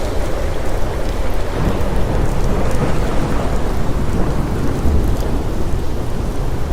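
Ocean surf: waves rolling in and breaking in a continuous rush of water, with a heavy low rumble underneath.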